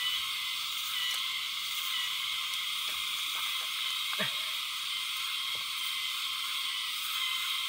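Dense, steady chorus of calling forest animals, a continuous high-pitched shrill that does not let up, with a few faint clicks and one knock about four seconds in.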